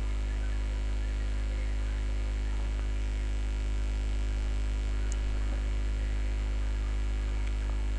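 Steady electrical mains hum with a stack of its harmonics, at an even level throughout. A faint tick about five seconds in.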